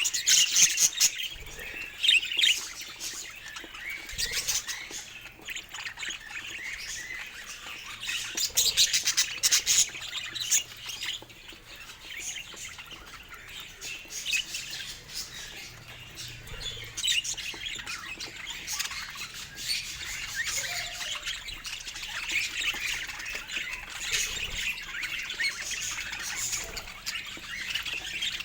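Budgerigars chattering and chirping without a break, a busy stream of short sharp notes mixed with squawks, loudest near the start and again about eight to ten seconds in.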